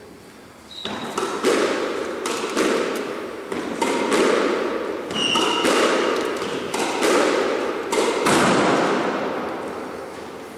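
Squash ball being hit around a squash court: repeated sharp smacks off racquet and walls, starting about a second in, with a hollow echo from the court. There are a couple of brief high squeaks.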